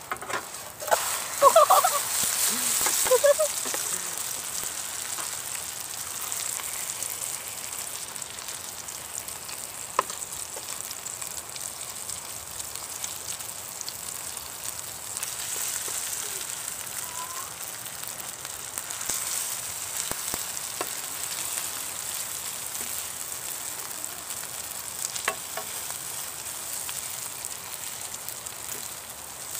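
Corn pancakes frying in oil in a nonstick pan, a steady sizzle, busiest and loudest in the first few seconds.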